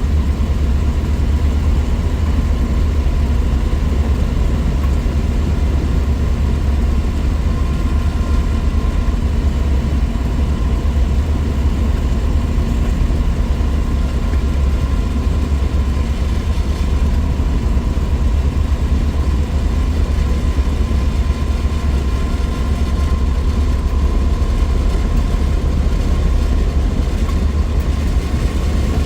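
1963 Willys Wagon's 230 Tornado overhead-cam inline-six running at a steady cruise, with a heavy, even low drone of engine and road noise and a faint steady whine on top.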